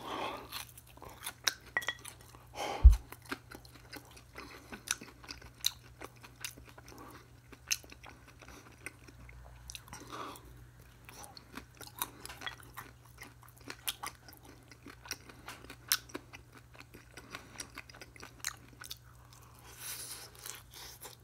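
Close-miked chewing of crunchy food, with many small crisp crunches and mouth noises throughout. A single loud thump about three seconds in.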